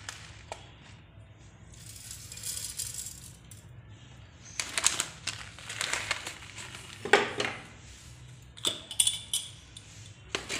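Dry coriander seeds dropped from the hand into a steel mixer-grinder jar, rattling and clicking against the metal and the vegetables in several quick showers from about halfway in.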